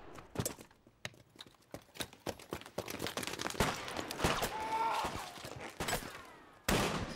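Film battle soundtrack: WWII-era rifle and pistol shots going off singly at irregular intervals, sparse at first and coming thicker after about three seconds. A short wavering high sound comes in the middle, and a heavy blast sounds near the end.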